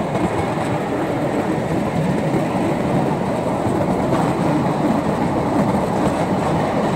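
Narrow-gauge slate wagons running along the track, a steady rumble and clatter of wheels on rails, heard from aboard an open wagon.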